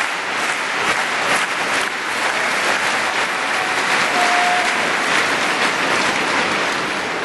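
Large arena crowd applauding, a dense sustained clapping.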